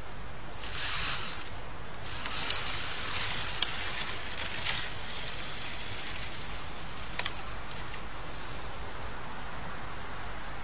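A worker moving about in snow beside a bird feeding table, clearing fallen branch debris: bursts of crunching and rustling, mostly in the first half, with a few sharp clicks, over a steady hiss.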